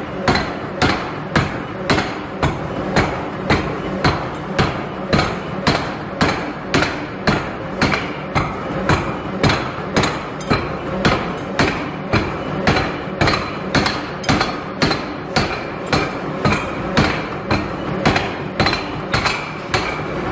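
Forging hammer striking steel in a steady rhythm of nearly two blows a second.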